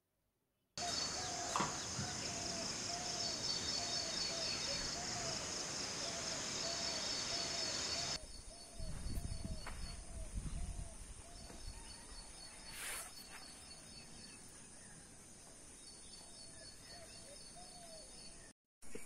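Outdoor countryside ambience: insects buzzing steadily at a high pitch, and a bird giving a short call over and over, about twice a second. The insect sound drops away about eight seconds in, while the calls carry on more quietly.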